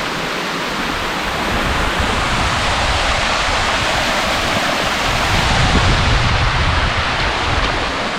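Steady rush of a creek waterfall, a dense even hiss of falling water that swells slightly for a few seconds past the middle.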